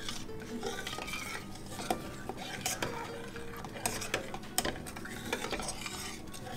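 A metal spoon stirs a thick milk-and-jaggery mixture in a stainless-steel pressure cooker, scraping and clinking against the pot's sides at irregular intervals.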